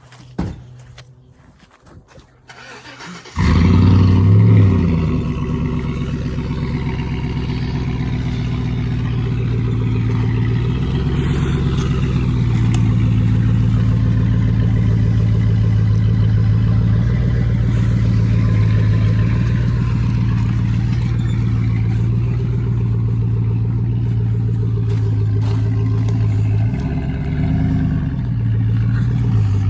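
A vehicle engine starts suddenly about three seconds in, revs briefly, then runs at a steady idle, with a couple of small revs near the end.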